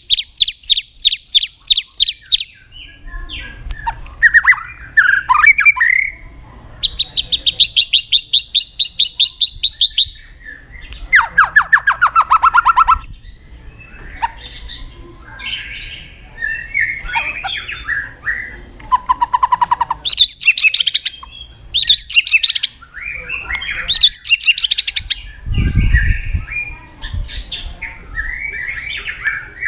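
White-rumped shama (murai batu) singing loudly and continuously: fast trills of rapidly repeated notes alternate with short, varied chattering and whistled phrases. A brief low thump sounds near the end.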